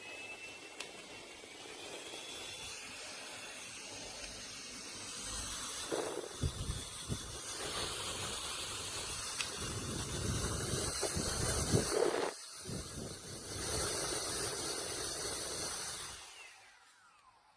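JISULIFE handheld turbo fan running: a thin whine rises as it spins up near the start, then a steady rush of air with gusts buffeting the microphone, and the whine falls away as it spins down near the end. The air noise breaks off briefly about 12 seconds in.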